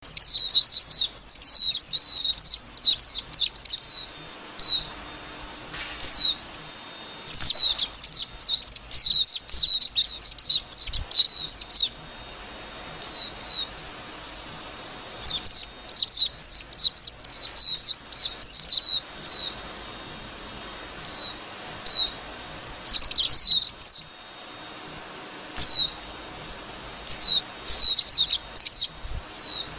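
White-eye singing: phrases of fast, high, twittering notes, each lasting from a moment to several seconds, with short pauses between them.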